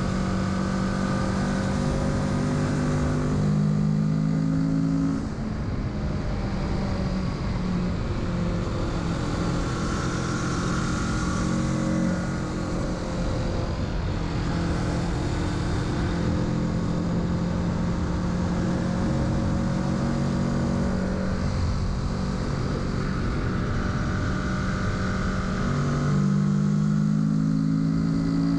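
2021 Kawasaki Z650's parallel-twin engine running under way, its pitch stepping up and down with the throttle. It rises about three seconds in and again near the end, and dips briefly around five and twelve seconds in. Steady wind and road noise run throughout.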